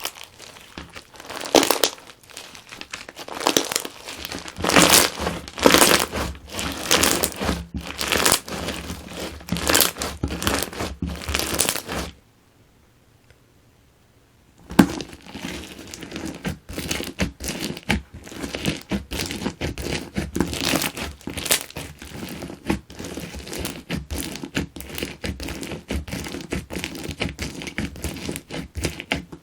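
Slime filled with Perler beads being squeezed and kneaded by hand, a dense crackle of many small clicks and pops from the plastic beads. It stops for about two and a half seconds near the middle, then resumes more softly.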